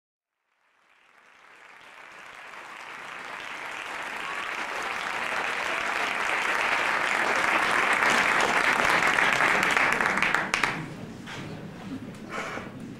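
Audience applause that rises gradually, holds at its loudest, then dies away suddenly about ten seconds in, leaving a few scattered claps.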